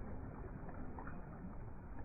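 Sea waves washing in a steady rushing noise.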